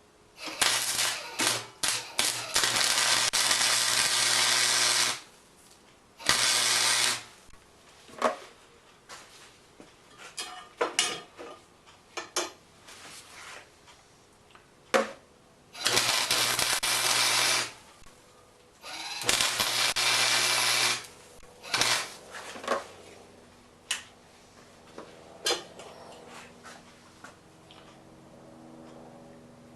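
Electric arc welder tack welding steel: four bursts of crackling, hissing arc, the longest about four seconds starting just under a second in, with a steady hum under each. Short clicks and taps come between the welds.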